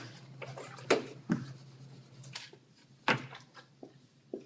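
A whiteboard being wiped clean, with scattered sharp knocks and clacks as the eraser and marker are handled.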